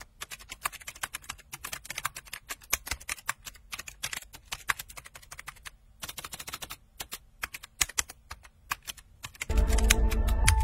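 Keyboard typing sound effect: rapid, irregular key clicks with a short pause in the middle, matching text being typed out on screen. About nine and a half seconds in, a louder low hum with two steady tones comes in.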